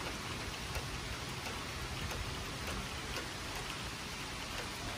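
Steady summer rain falling, an even hiss with scattered drops ticking close by.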